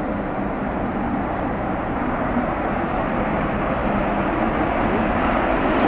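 Panavia Tornado GR4's twin RB199 jet engines at full power in reheat during a takeoff roll and lift-off, a dense, steady jet roar that grows steadily louder as the aircraft comes closer.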